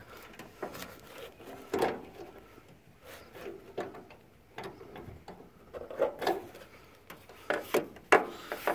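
Diagonal cutters snipping the zip ties that hold a GM door hinge spring compressed, freeing it in the hinge. It is heard as several scattered sharp clicks and knocks over rustling handling noise, the strongest a little under 2 s in, about 6 s in and about 8 s in.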